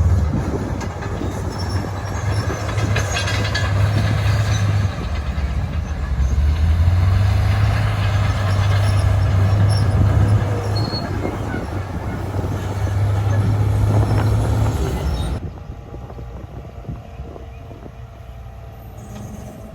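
Heavy diesel construction machine working, a loud low engine drone with metallic clatter over it. About fifteen seconds in the sound cuts off abruptly, leaving a quieter hiss.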